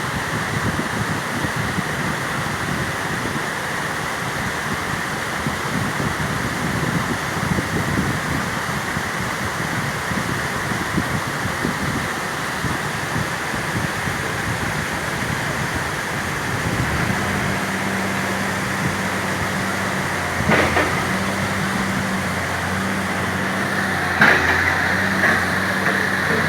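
Backhoe engine running with a steady rushing noise, its low hum becoming clearer about two-thirds of the way through, and a few sharp knocks near the end.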